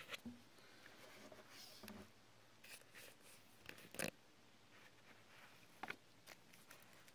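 Faint handling noise as a dive watch with a rubber strap and its plastic wrapping is picked up and moved: soft rustles and a few light clicks and taps, the sharpest about four seconds in and two more near six seconds.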